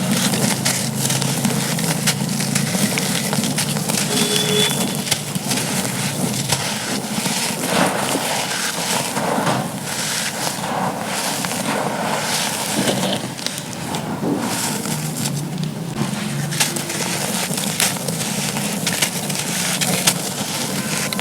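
Dry charcoal chunks being crumbled and crushed, a continuous run of gritty crunches and crackles.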